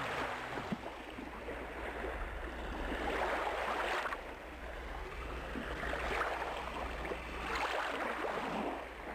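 Surf washing onto a sandy beach, the rush of water swelling and falling away about four times.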